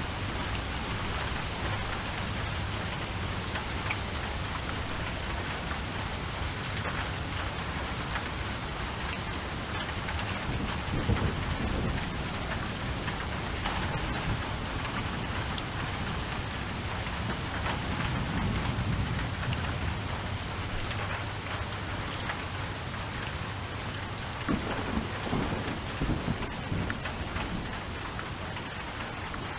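Steady heavy rain, with low rolls of thunder about a third of the way in and again past the middle, and a few louder crackles near the end.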